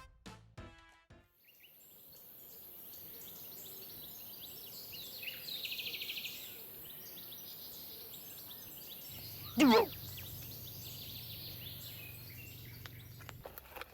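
Outdoor ambience of birds calling, with a rapid trill about halfway through, over a steady high hiss. Near the end, one loud, short sound rises sharply in pitch.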